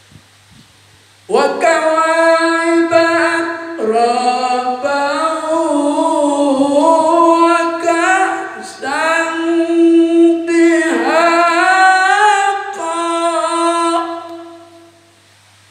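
A man's voice chanting a melodic Quran recitation (tilawah) in long held, ornamented phrases, with short breaths between phrases. It starts about a second in and fades out near the end.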